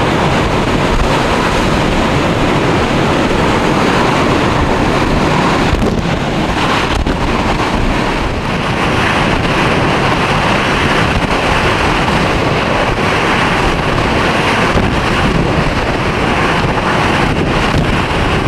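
Hurricane-force wind blowing hard and steadily with wind-driven rain, the gusts buffeting the microphone.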